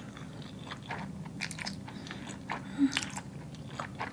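Mouth sounds of eating spaghetti: noodles slurped in, then chewing with scattered soft wet clicks. There is one short low hum a little before three seconds in.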